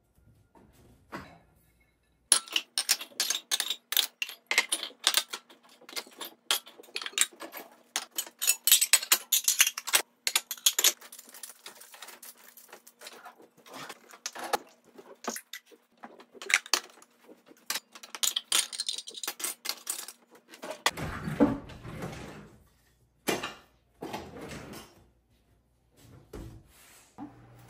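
Dishes, glassware and cutlery clinking and clattering as a dishwasher is unloaded, with the cutlery basket jangling: a long, dense run of sharp clinks, then a few duller knocks near the end.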